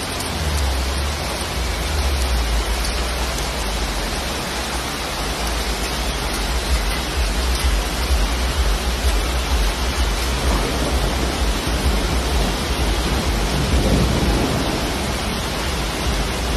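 Heavy rain falling on a city street, a loud, steady, even hiss, with a low rumble underneath.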